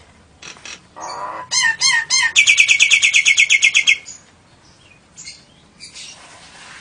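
Songbird singing: a few quick chirps about a second in, then a loud, fast trill of rapidly repeated notes lasting about a second and a half.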